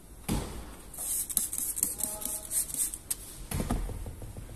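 Spray bottle spritzing water onto window-tint film, a quick series of short hisses, with a couple of dull handling knocks against the car door.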